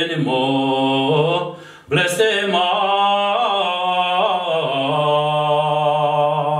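A man singing a slow Romanian folk lament in long, drawn-out held notes, with a brief break about two seconds in.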